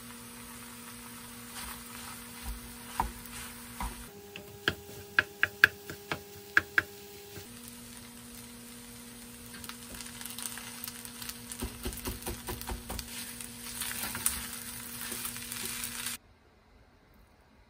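Kimchi fried rice sizzling in a frying pan as it is stirred with a wooden spatula, the crackling growing stronger in the second half. Near the middle there is a quick run of about eight sharp taps. The sound cuts off suddenly near the end.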